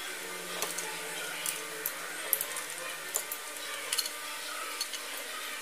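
Scattered small clicks and light knocks of plastic and metal parts being handled as a clothes iron is taken apart, over a steady background hiss.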